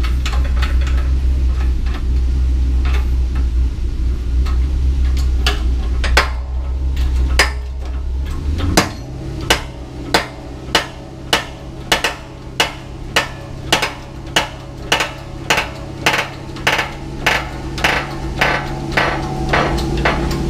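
Hand-pumped hydraulic shop press being worked to push a pinion gear down through its bearing in a bearing splitter. From about nine seconds in, a sharp metallic clank comes with each pump stroke, about every two-thirds of a second, over a steady low hum that shifts pitch at the same point.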